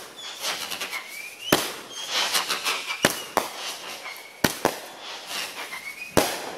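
Aerial fireworks bursting overhead: about six sharp bangs roughly a second apart, with crackling from the sparks between them.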